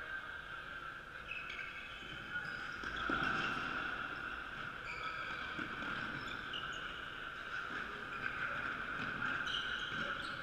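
Echoing sports-hall ambience: scattered short squeaks and distant shouts from players moving on the wooden court, over a steady high hum.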